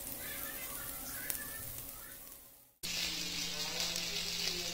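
Paneer cubes sizzling as they shallow-fry in oil in a pan. After a cut about three seconds in, the sizzle comes back louder and denser, as the cubes brown.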